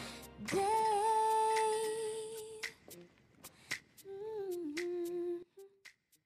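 A woman humming a long held note, then a shorter second note that dips in pitch, with a few sharp clicks in between.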